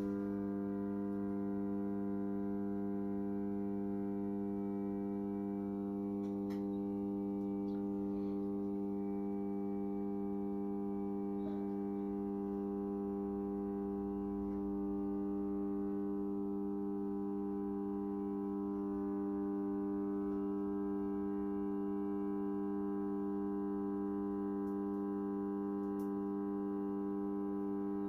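Microwave oven transformer on 240 V mains humming steadily, its secondary loop of 35 mm² cable short-circuited through an M8 threaded rod so that the core carries a heavy short-circuit current.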